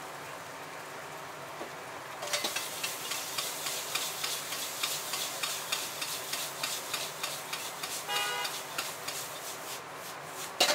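Metal ladle scraping and clacking rapidly against a wok as noodles are stir-fried over a gas flame, after a couple of seconds of steady hiss. A brief metallic squeal comes about eight seconds in, and a loud clang of metal on the wok near the end.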